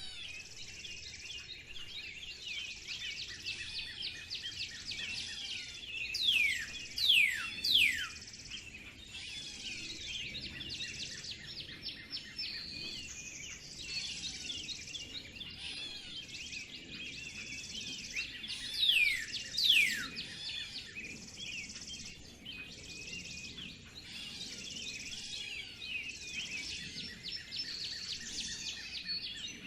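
Spring birdsong chorus: many small birds chirping and twittering without a break, high in pitch. A loud, clear whistle sweeps steeply downward twice about six to eight seconds in, and twice again around nineteen to twenty seconds in.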